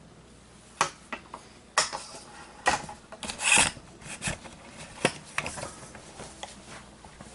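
Handling noise: a scattering of sharp knocks and clicks with a longer scraping rub about three and a half seconds in.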